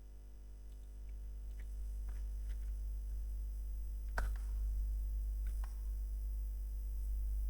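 A few faint clicks, one louder about four seconds in, over a low steady hum that grows louder during the first two seconds.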